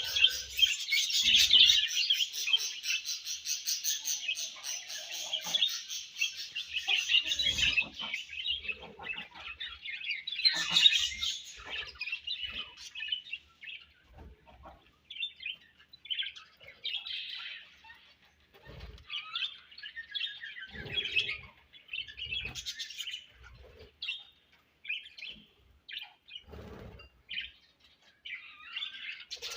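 Budgerigars chirping and warbling: a dense, continuous chatter for about the first eight seconds, then scattered chirps with short gaps. A few soft low knocks come in between.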